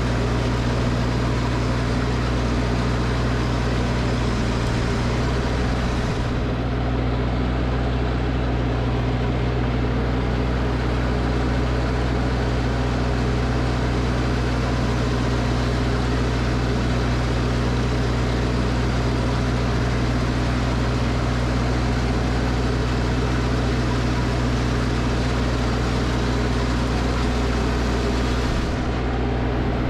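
Snowblower engine running steadily under load with a constant drone.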